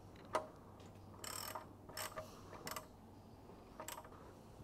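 Ratchet wrench clicking in several short spurts as the oil drain plug is tightened by hand.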